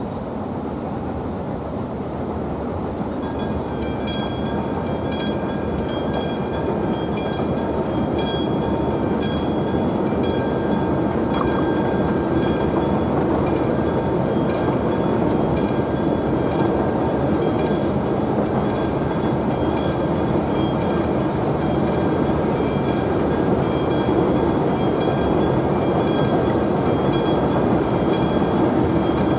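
Classic electric bell of an AŽD 71 level-crossing warning signal starts ringing about three seconds in, a fast, even ringing that signals a train is coming. Under it, the rumble of an approaching train grows steadily louder.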